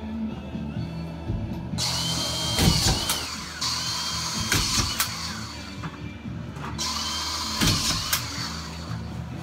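Cordless power screwdriver driving screws through plasterboard into the ceiling joists: three bursts, each with the motor whine rising and then falling away, over faint radio music.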